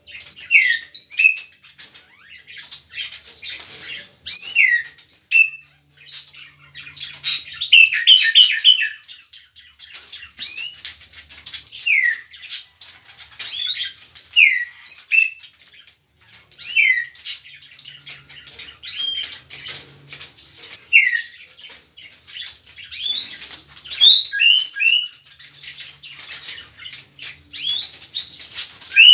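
Tropical mockingbird singing: a long run of varied whistled phrases, slurred notes sliding down and up, coming every second or two, with a quick rapid-fire trill about eight seconds in.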